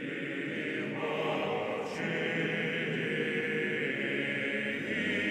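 A choir singing slow chant in held, sustained notes, with new voices entering about a second and two seconds in.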